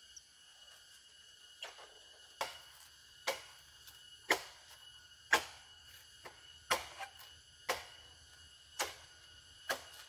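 A series of about ten sharp knocks, roughly one a second, starting about a second and a half in, over a steady high chorus of insects.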